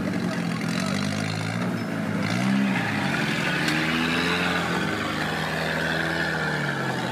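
Off-road 4x4 trial vehicle's engine revving up and down under load, its pitch rising and falling several times with a sharper rev about two and a half seconds in.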